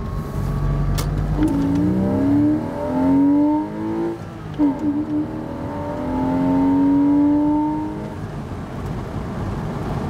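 The stock 2.7-litre flat-six of a 2000 Porsche Boxster 986 under full-throttle acceleration, heard from inside the cabin. The revs climb through first gear, drop briefly at the shift to second about four and a half seconds in, and climb again until the throttle eases off about eight seconds in.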